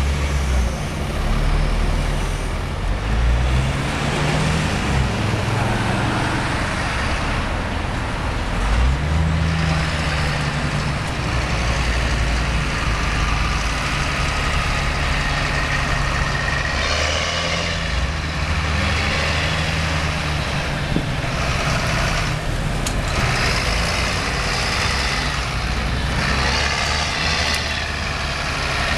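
Heavy diesel engines of a CAT 966H wheel loader and a John Deere 7710 tractor working under load. The engine pitch rises and falls as they rev, then runs fairly steadily.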